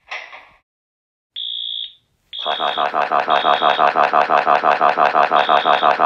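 Fire alarm going off: a short high beep, then rapid, loud pulsing ringing from about two seconds in, with a high tone sounding on and off over it. A brief noisy sound comes right at the start.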